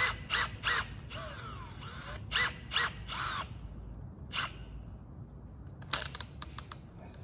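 Makita 18V cordless drill's keyless chuck being tightened by hand on a 1/4-inch drill bit: a run of short ratcheting clicks in several bursts, with a few more clicks about six seconds in.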